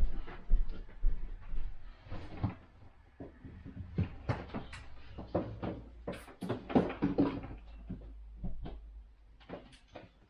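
Irregular clicks, knocks and light rattles of a jump starter pack's plastic casing and cables being handled, with a busier run of knocks about two-thirds of the way through.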